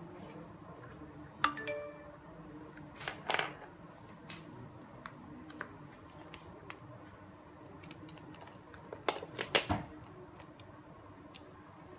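Scattered clicks and knocks of hard plastic sprayer parts being handled, with brief rustles of a plastic parts bag; the sharpest click is about a second and a half in and rings briefly, and a quick run of clicks comes near the end. A faint steady hum runs underneath.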